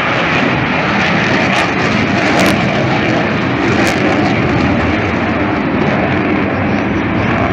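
Military fast jet flying its air display overhead: loud, steady jet engine noise that does not let up.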